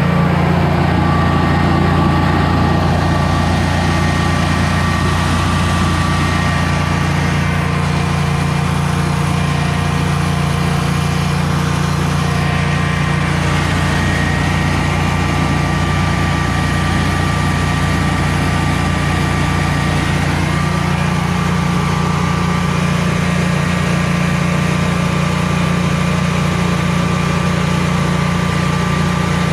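Generac Guardian 16 kW standby generator's air-cooled V-twin engine running steadily at constant speed, with a steady hum and a couple of thin whining tones above it.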